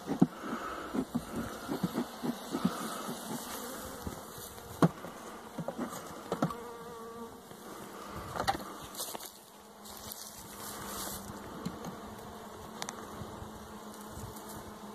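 Honeybees buzzing over an opened hive, a steady hum, with scattered clicks and knocks from the wooden frames and hive parts being handled.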